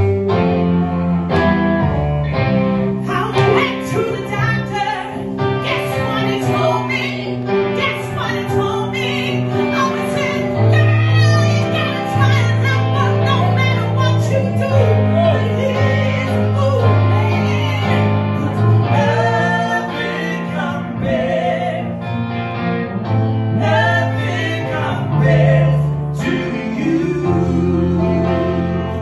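Live soul ballad: a woman and a man singing into handheld microphones over keyboard accompaniment, with long sustained low notes under the voices.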